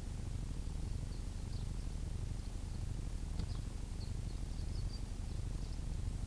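Steady low wind rumble on the microphone, with faint, short high chirps of small birds scattered throughout.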